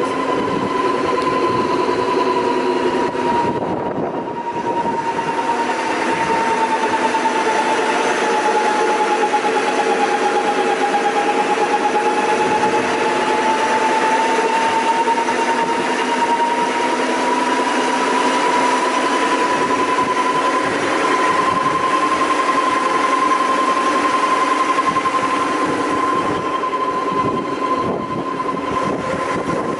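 Quick Wood RO1100 brush sanding machine running, its motors and rotating sanding brushes giving a steady whine. The whine sinks slowly in pitch about ten seconds in and then climbs back, as the brush rotation speed is turned down and up on the stepless speed control.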